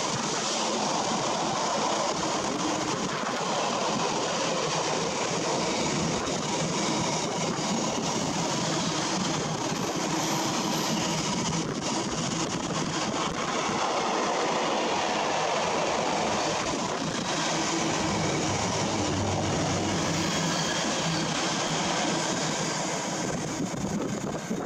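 Container freight train's wagons rolling past on the track, a continuous rumble and rattle of steel wheels on rail that eases off right at the end as the last wagon goes by.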